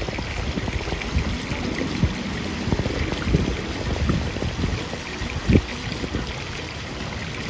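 Shallow pool water sloshing and splashing around wading legs, with a small spout of water running into the pool and a low wind rumble on the microphone.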